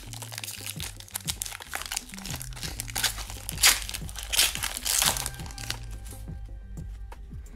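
Foil wrapper of a 2006-07 Fleer hockey card pack crinkling and crackling as it is torn open by hand, loudest in the middle and dying away about six seconds in. Background music with a steady bass line runs underneath.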